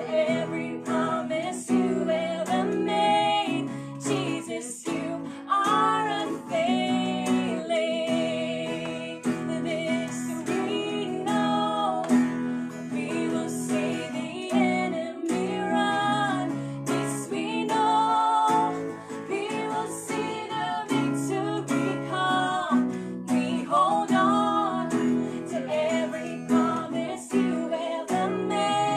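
Two women singing a worship song together, accompanied by a strummed acoustic guitar.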